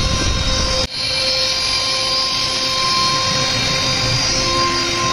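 CNC router spindle whining steadily while its bit carves a teakwood door panel, with a constant cutting rush under the whine. The sound briefly drops out just under a second in, then the same machining noise resumes.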